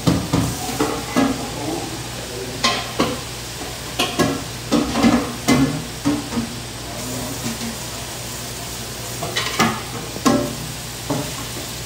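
Food frying in hot oil with a steady sizzle, while utensils knock and scrape against pots and pans about a dozen times, mostly in the first half and again near the end.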